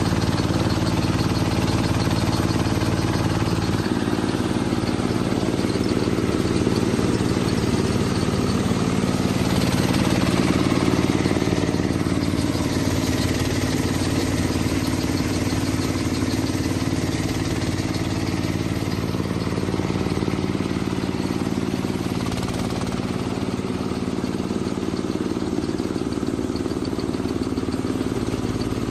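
Mini rice combine harvester's engine running steadily, its note shifting slightly a couple of times.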